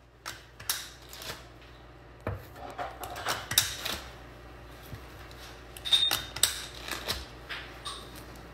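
Hand-held cookie press being worked and set down on a parchment-lined baking tray while it squeezes out chocolate petit four dough: a string of irregular sharp clicks and knocks, the loudest about three and a half and six seconds in.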